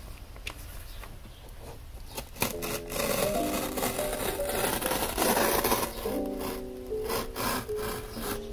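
Box cutter slicing along the taped seam of a cardboard shipping box: a loud, scratchy rasp of the blade through packing tape and label, from about two seconds in to about six seconds. Lo-fi instrumental background music plays underneath.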